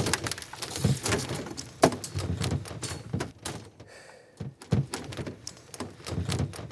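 Rustling of clothing and a canvas bag with irregular knocks, clicks and thunks as someone rummages through a car's interior; the loudest knocks come in the first second and again just before two seconds in.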